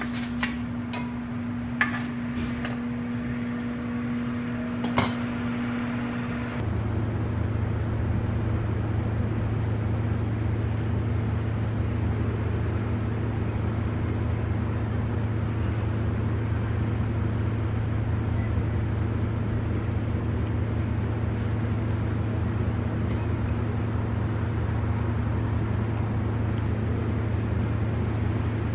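Metal kitchen tongs clinking a few times against a baking tray and a plate while mini croissants are lifted, over a steady hum. After about six and a half seconds this gives way to a louder, even, low hum with no distinct clicks.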